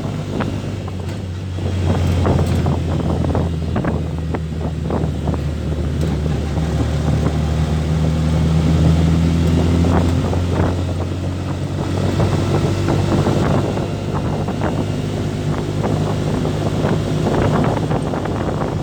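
A motor vehicle's engine running steadily on the move, a low hum that drifts a little in pitch, with wind on the microphone and frequent small knocks and rattles.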